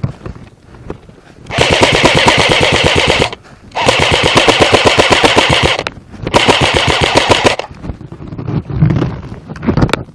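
Airsoft gun firing on full auto in three bursts of rapid shots, each around two seconds long, the last one shorter.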